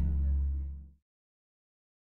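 Background music ending on a low bass note that fades out and stops about halfway through.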